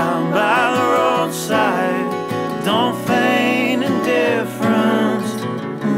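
Background music: a country-style acoustic guitar song with a sung melody line over the strumming.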